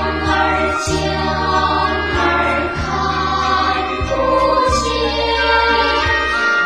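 A choir singing a slow children's song in Chinese, with long held notes over a steady instrumental accompaniment.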